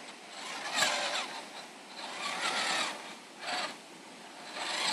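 Electric drive motor and gears of a Radio Shack Off Roader converted to a hobby-grade RC crawler, whining in four short bursts of throttle, the pitch wavering as it strains.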